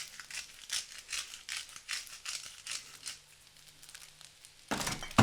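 Salt shaker shaken over the pan, a quick run of crisp rattling shakes, about four a second, fading after about three seconds. Near the end comes a short, louder clatter.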